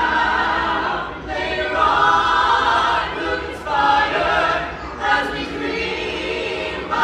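A small mixed group of carolers singing a holiday song a cappella in harmony, in phrases of a second or two with brief breaths between them.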